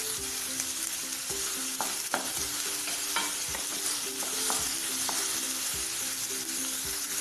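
Chopped onion sizzling in hot oil in a pan with mustard and cumin seeds, a steady frying hiss, with a spoon stirring and knocking against the pan now and then.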